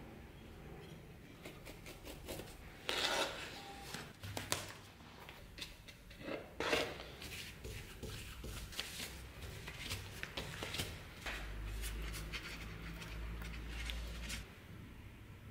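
Workbench handling sounds as leather is laid around a wooden scabbard core and glue is brushed on: irregular rubbing and light taps of the brush and hands. There are louder handling noises about three and six and a half seconds in, and a low hum near the end.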